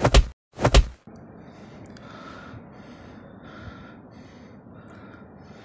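Two heavy thuds of blows landing in a fist fight, under a second apart. Then a man pants hard, a breath about every second and a half.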